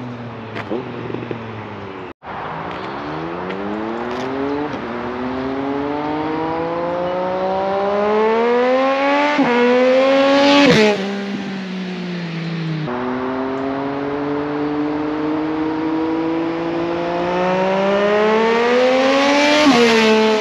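Triumph Street Triple 765 RS inline three-cylinder engine accelerating hard, its pitch climbing steadily through the revs in two long pulls. A brief dip in the first pull is a quick-shifter upshift, and each pull ends with the revs dropping suddenly.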